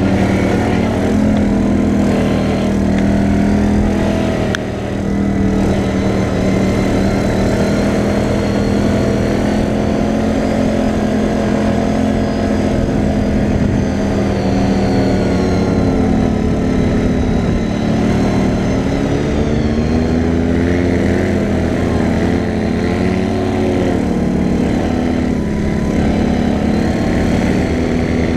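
CFMoto 500A ATV's single-cylinder engine running under way, its pitch rising and falling as the throttle is worked over rough ground. Wind rumbles on the microphone.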